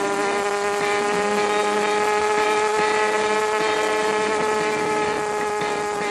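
Kawasaki ZRX's inline-four engine running at a steady cruise, a continuous drone that eases slightly in pitch.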